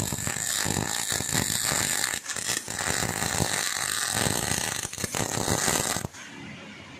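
MIG welding arc crackling and sputtering steadily as a bead is laid on steel, stopping abruptly about six seconds in when the trigger is released.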